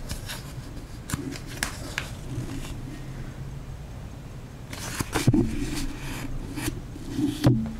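Handling noise of a phone and a paper setup-code card: scattered light clicks and rustles, with two louder knocks about five seconds in and near the end.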